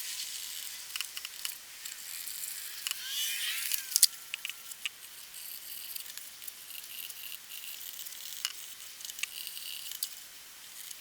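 Knife blade drawing through leather: a scratchy scraping, with a few light clicks and taps from the blade and the leather being handled.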